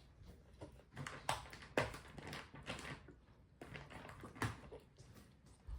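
Scattered light taps, knocks and rustles of a toddler's mealtime, a few short sounds about a second apart with no steady sound between.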